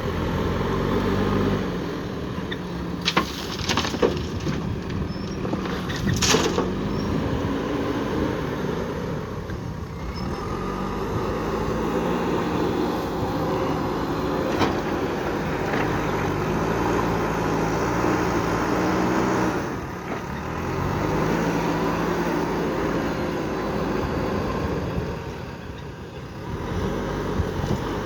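JCB 3DX backhoe loader's diesel engine working, its pitch rising and falling in repeated cycles as it digs and loads gravel. A few sharp knocks come about three to six seconds in.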